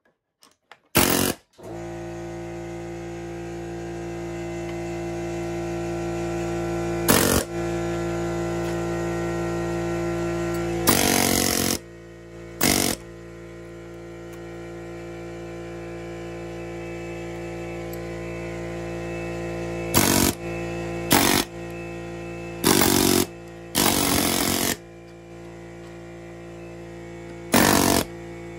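Pneumatic air hammer firing in about ten short bursts, each under a second, chipping at melted plastic on a lawnmower hood. These are the loudest sounds. Underneath, a small air compressor runs steadily and keeps up with the hammer's air demand.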